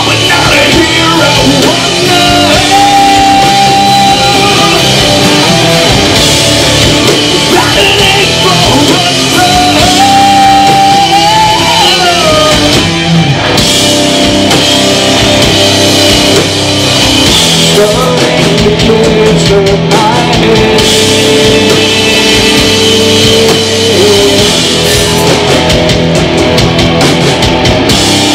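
Live rock band playing loud, with electric guitars, a drum kit and a singer's vocals, and several long held notes over the band.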